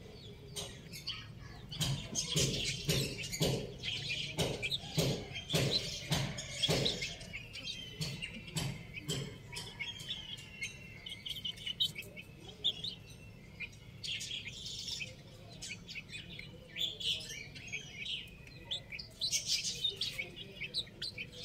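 Young chickens cheeping while they peck at feed on a concrete floor. In the first half there is a quick run of sharp taps as beaks strike the concrete.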